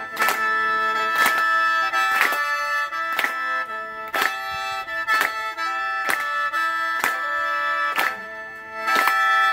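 Khaen, a Thai-Lao bamboo free-reed mouth organ, playing a melody over a steady drone, with a hand clap keeping time about once a second.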